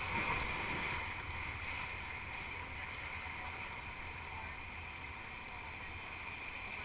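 Steady rush of river whitewater around a raft, with a low wind rumble on the camera microphone.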